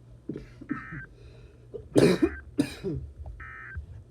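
A person coughing twice in quick succession near the microphone, with throat-clearing sounds before the coughs.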